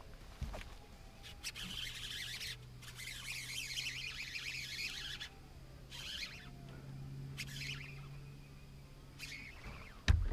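Birds chirping in repeated short spells over the steady low hum of a bow-mounted electric trolling motor. A single sharp thump comes near the end.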